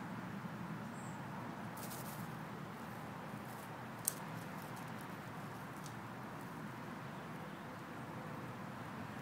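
Faint rustling and a few soft clicks from a fox squirrel foraging and scampering in short grass, over a steady low outdoor background hum; one sharper click about four seconds in.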